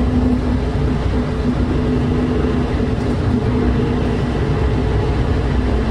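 Inside an airport people-mover train car while it runs: a steady rumble with an even, unchanging hum.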